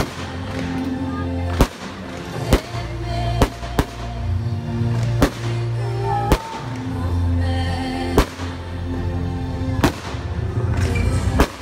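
Fireworks shells bursting in sharp bangs, about nine at irregular intervals, over loud show music with a heavy bass line.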